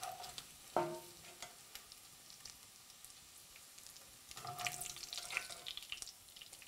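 Bacon frying in a cast iron Dutch oven, nearly done, with a steady crackling sizzle. A clink about a second in, and knocks and scrapes of a utensil against the pot from about four to five and a half seconds in, as the bacon is lifted out.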